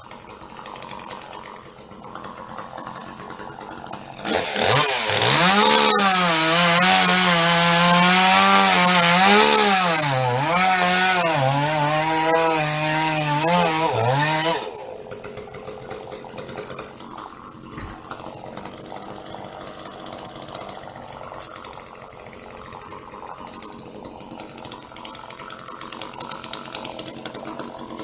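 Two-stroke chainsaw at full throttle for about ten seconds. Its pitch dips and recovers again and again as it bogs in the cut through eucalyptus wood, then drops back abruptly to a much quieter running sound.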